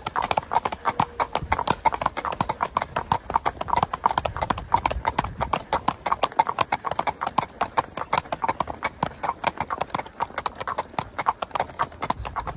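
Horse's hooves clip-clopping on an asphalt road at a brisk, even gait: a fast, steady run of sharp hoof strikes, several a second.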